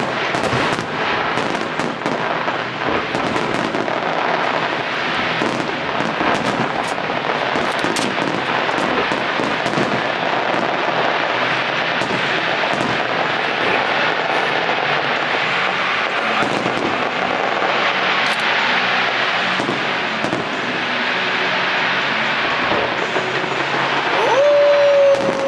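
Aerial fireworks display with dense, continuous crackling and many quick bangs. A short pitched tone bends and fades near the end.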